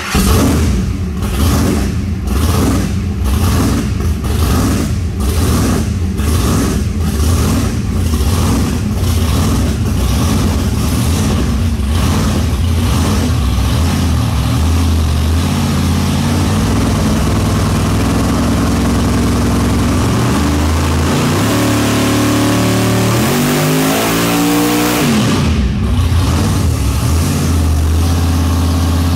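Supercharged big-block Chevy V8 idling with a heavy, pulsing lope just after starting, then steadier. About twenty-two seconds in it is revved up and falls back to idle.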